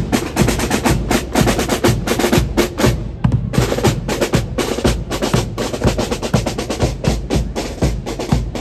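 Percussion-heavy music with quick, regular drum strikes, several a second.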